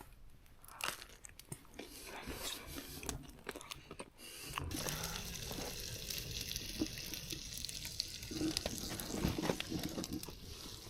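Bacon frying in a pan over a campfire: a steady sizzle with many small crackles that sets in about four and a half seconds in, after a quieter stretch of scattered clicks.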